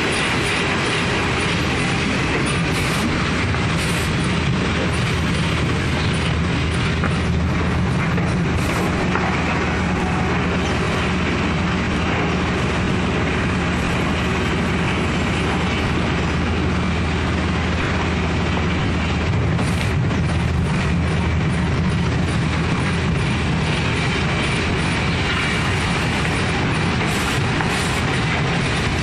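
Automatic CNC cross-cut saw line for wood running steadily, with motor hum and feed-roller and conveyor rattle. A few sharp clacks come through at irregular times.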